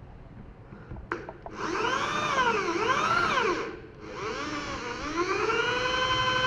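Bosch GSB 550 corded impact drill starting with a click of the trigger, its motor whine rising and falling in pitch as the variable-speed trigger is feathered while the bit is worked gently into wood. It stops briefly near four seconds, then spins back up and holds a steady pitch.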